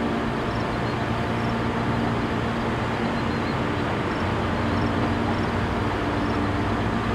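Steady engine and road noise of a moving car, a low even drone with faint high ticks repeating evenly in the background.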